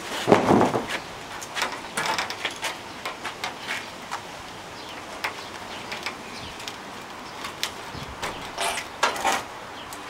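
Wood knocking, creaking and clattering as the old wooden garage door frame is wrenched apart by hand, loudest in the first second, then scattered short knocks.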